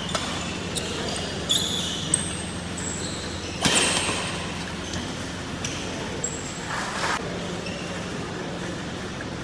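Badminton doubles rally: rackets striking the shuttlecock and court shoes squeaking on the synthetic mat, with one louder sharp hit a little under four seconds in. A steady low hum runs underneath.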